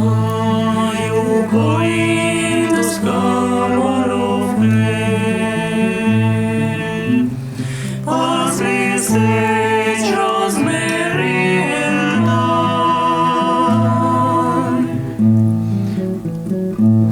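Singing with plucked acoustic guitar accompaniment: a sung melody over a steady, repeating bass line.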